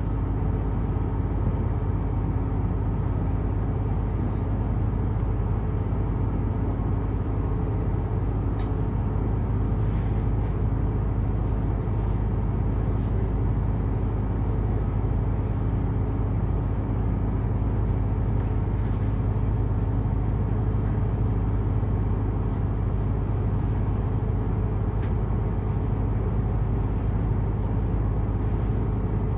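Excursion boat's engine running steadily, a low even hum.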